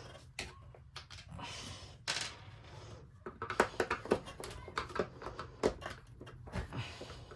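Screwdriver turning a stubborn screw by hand in a vacuum cleaner's plastic housing: irregular clicks, scrapes and small knocks of tool on screw and plastic, busier from about halfway in.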